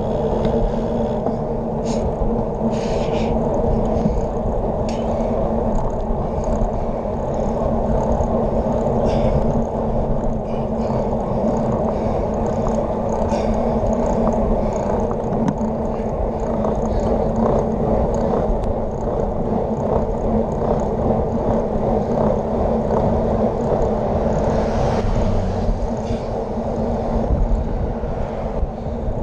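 Steady wind and road rumble picked up by a handlebar-mounted camera on a road bike rolling over wet asphalt, with occasional clicks from the bike. Near the end an oncoming car passes with a swelling hiss of tyres on the wet road.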